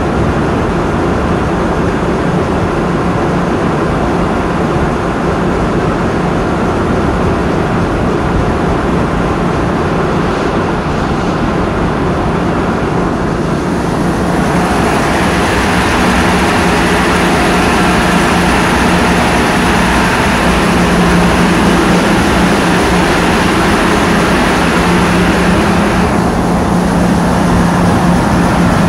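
A vessel's engine running steadily at sea, with water rushing along the hull. About halfway through it gets louder and brighter, and a steady hum rises above the rest.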